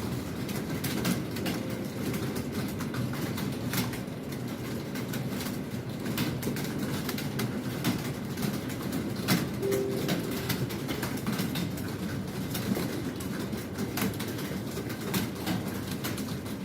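Many computer keyboards being typed on at once by a room of test-takers: a dense, steady, irregular clatter of keystrokes.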